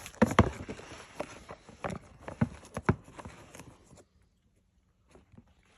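Football boots being handled, making a run of irregular knocks and clicks, like studs tapping on a hard surface, with a light rustle. It stops about four seconds in.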